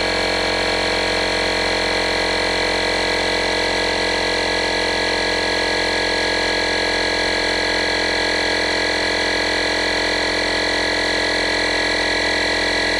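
A 12-volt electric air compressor for an air horn running steadily, a constant motor hum with a whine, as it pumps up the horn's air tank.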